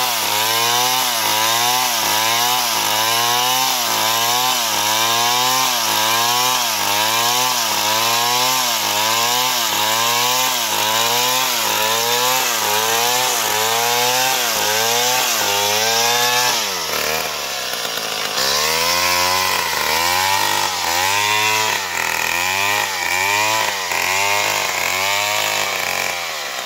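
Stihl chainsaw ripping lengthwise through a palm trunk, its engine pitch rising and falling over and over in a steady rhythm as it loads up in the cut. About two-thirds of the way in the pitch drops and the cycle carries on with deeper dips.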